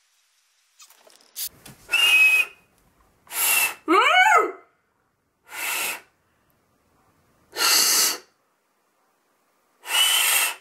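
Failed finger-whistle attempts: five breathy blasts of air about two seconds apart, mostly hiss with a faint thin whistle tone in most of them. A brief rising-and-falling voice sound follows the second blast.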